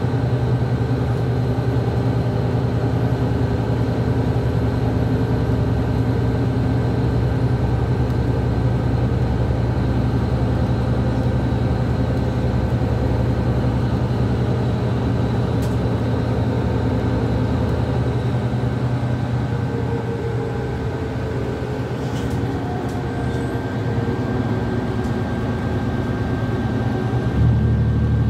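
Regional bus heard from inside the passenger cabin while under way: steady engine drone and road noise. The engine note shifts near the end.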